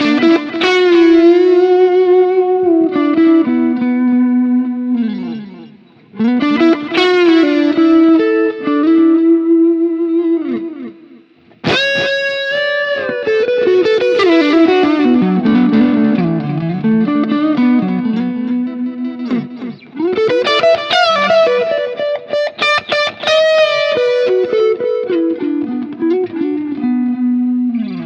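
Electric guitar through a BSM Starbreaker transistor tube-power-amp simulator pedal into a Fender Bassman amp, played as overdriven phrases of held notes and chords. The playing starts at once and breaks off briefly about five and eleven seconds in.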